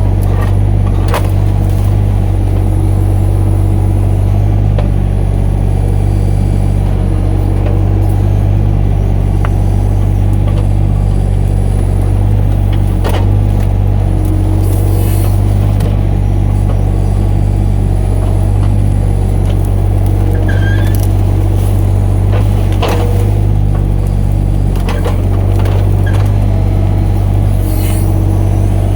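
Kato mini excavator's diesel engine running steadily under work, with a few sharp knocks, about a second in, near halfway and later on.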